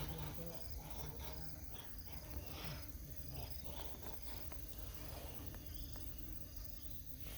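Faint, short, high-pitched insect chirps recurring irregularly over a quiet, steady background.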